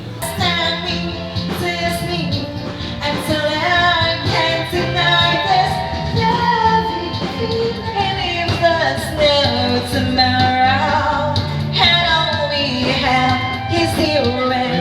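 A woman singing a love song karaoke-style over a backing track with a steady beat.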